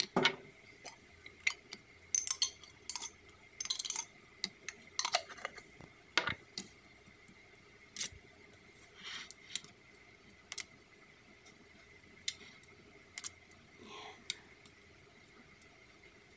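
Scattered light clicks, taps and short scrapes against a metal pizza pan as pizza sauce is spread over the dough, with a cluster of longer scrapes a few seconds in.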